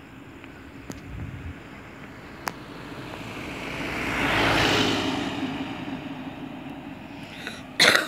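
A vehicle passing close by on the road, its tyre and engine noise swelling to a peak about four and a half seconds in and then fading. Near the end, a brief loud bump or rustle on the microphone.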